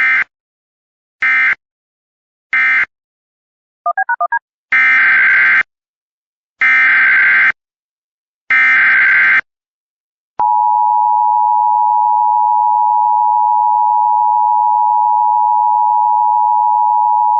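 Emergency Alert System signalling. Three short SAME end-of-message data bursts and a quick run of four beeps are followed by three one-second SAME header data bursts, warbling around 1.5–2 kHz. About ten seconds in, the steady two-tone EAS attention signal (853 and 960 Hz) starts and holds.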